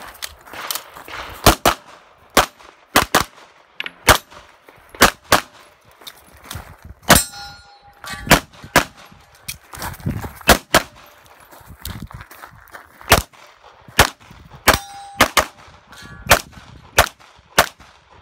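Handgun shots fired in quick pairs, string after string with short pauses between groups. Twice a steel target rings briefly after a hit.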